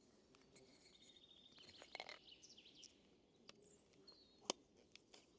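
Faint woodland birdsong: a quick trill of repeated high notes about a second in, then several short chirps and whistled glides. A single sharp click about four and a half seconds in is the loudest sound.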